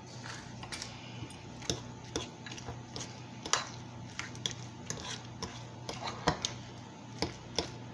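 Metal spoon clinking and scraping against a ceramic bowl while stirring a soft mashed-potato filling, in irregular clicks about one or two a second.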